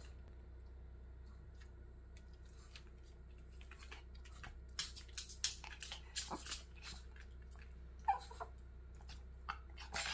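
Pomeranian fidgeting for a treat: a run of sharp clicks about five to seven seconds in and a few more near the end, with a short whine about eight seconds in.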